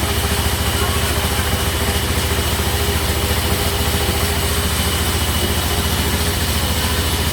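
Sawmill machinery running steadily, a loud, even low throb with a constant hum.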